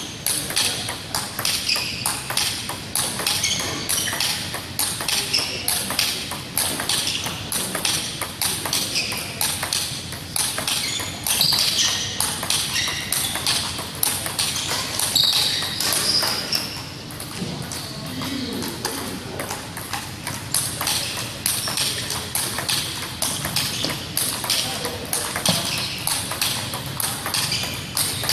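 Table tennis multiball drill: the coach feeds balls with his bat in quick succession and the player hits each one back. The result is a fast, steady run of sharp clicks as the celluloid balls strike the bats and the table.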